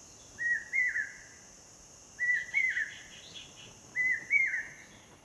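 Asian koel calling: a clear two-note whistled call, the second note a little higher, repeated three times about every two seconds.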